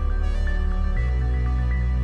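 Background music: a calm electronic track with a sustained bass and a stepping melody, the bass note changing about halfway through.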